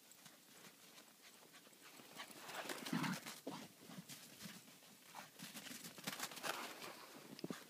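Footsteps crunching through snow, an irregular run of crisp steps that grows loudest about three seconds in and again near the end.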